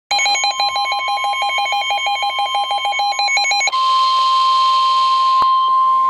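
NOAA Weather Radio alerting for a severe thunderstorm warning. A receiver's fast, pulsing electronic alert beep sounds over the steady 1050 Hz warning alarm tone. The beeping stops a little over halfway through, leaving the steady tone with a hiss, and there is a single click near the end.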